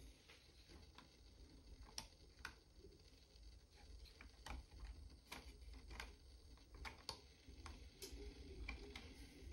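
Faint, scattered sharp clicks, about a dozen at irregular intervals, as push buttons on a model-railroad mimic panel are pressed to throw turnouts, over a low steady hum.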